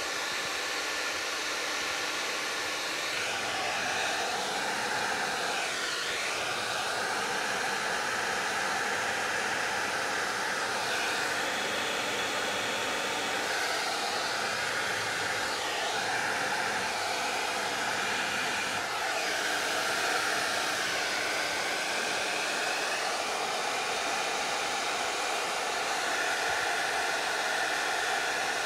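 A Hot Tools Turbo Ceramic hair dryer runs on high heat, blowing steadily onto a canvas to melt crayon wax. It makes a constant rushing whoosh with a faint whine, and its tone shifts slightly every few seconds as it is moved over the canvas.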